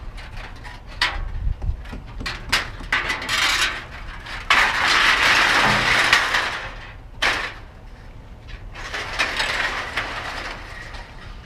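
Scrap metal being handled: a series of short clanks and clinks, then longer stretches of rattling and scraping.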